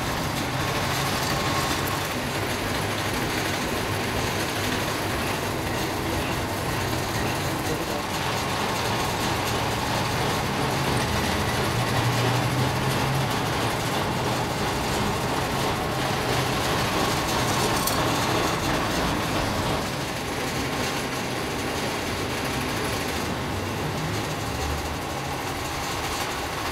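Steady, dense noise of factory machinery running continuously in a crankshaft production shop, with a faint steady hum.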